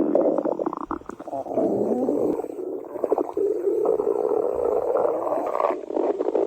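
Cartoon stomach-growl sound effect: a long, wavering rumble broken by short crackles, the sign of hunger.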